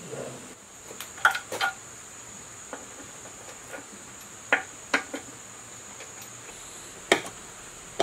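Scattered sharp metallic clinks and taps of tools and parts being handled while reassembling a generator, in small groups a second or two apart, over a steady thin high-pitched tone.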